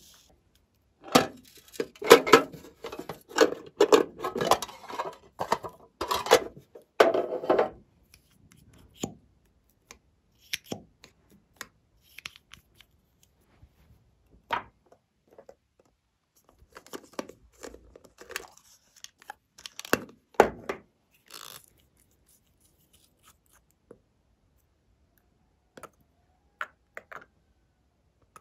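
Close-up handling noise: a few seconds of dense rustling and crunching, then scattered small clicks and taps of plastic containers. Near the end, a few small clicks as a nail polish bottle is opened.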